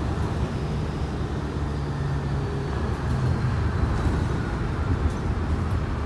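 City bus running, heard from inside the passenger cabin: a steady low rumble with short low humming tones that come and go, and a faint high whine.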